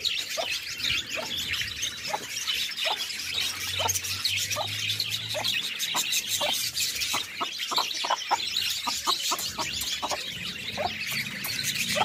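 Red Aseel hen and her chicks while feeding: continuous high chirping and peeping, with short sharp calls about twice a second.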